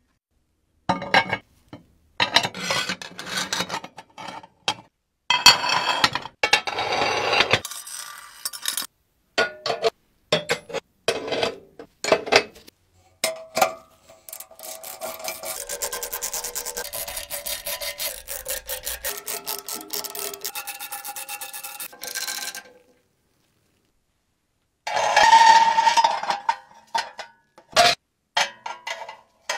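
Cast-iron stove parts being scraped and rubbed in short bursts, with sharp metal clicks and knocks as pieces are handled. In the middle a small handheld power tool runs steadily for about eight seconds while a fitting is fixed to the stove top, and a loud scraping burst follows near the end.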